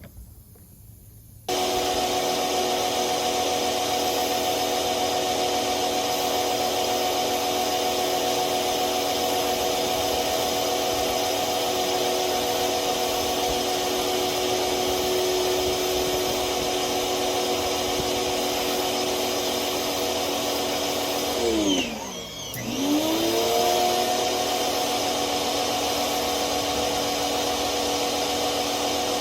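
Bauer pressure washer starting up suddenly and running at a steady pitch as it sprays. Late on its pitch sags sharply and climbs back up, as the motor slows and spins up again with the trigger.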